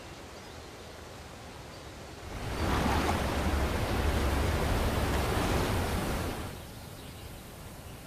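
Water of Yosemite Falls pouring down: a steady rush of noise that swells up about two and a half seconds in, holds for about four seconds, and falls back to a lower rush near the end.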